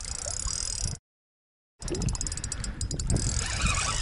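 Spinning reel being cranked with a fish on, faint clicks over a low rumble. The sound drops out completely for under a second about a second in.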